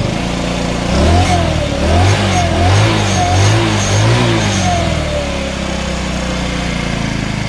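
Wolf RX-50 scooter's 50cc four-stroke engine idling, then revved in about five short throttle blips from about a second in, easing back to a steady idle a little after four seconds. It is running on a newly installed carburetor, and its idle speed is set a little low.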